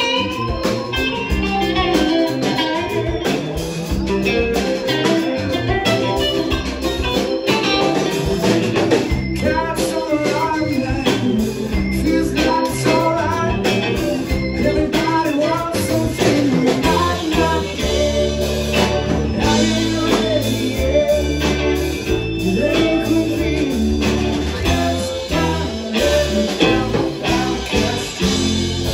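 Live rock band playing, electric guitar out front over drums.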